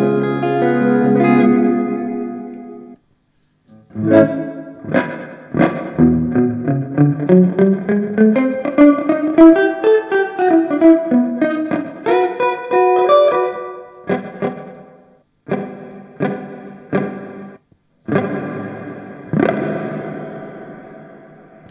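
Electric guitar through a TC Electronic Hall of Fame reverb pedal. A ringing chord fades out, then comes a fast legato run of notes rising and falling, and then a string of short chord stabs. The last chord is left to ring and decay in the reverb.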